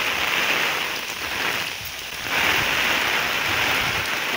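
Heavy wind-driven rain pouring down in a steady hiss. It eases for a moment about two seconds in, then comes back harder.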